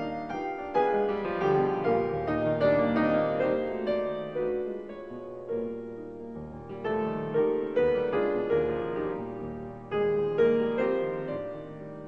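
Piano music: struck notes and chords ringing out and dying away, in phrases that swell and fade.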